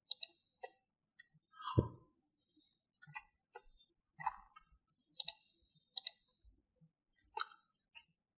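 Computer mouse clicks and keyboard key presses: short, sharp clicks at irregular intervals, with one duller knock about two seconds in.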